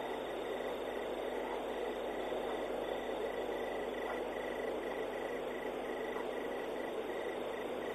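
Night insects chirping: a high, even chirp repeating a few times a second over a steady hiss.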